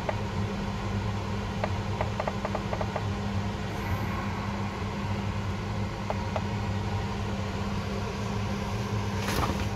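Steady low electrical hum, with a quick run of light clicks about two seconds in and a couple more around six seconds as a thumb presses the keys of a Foxwell BT-780 battery analyzer. A short broad rustle near the end.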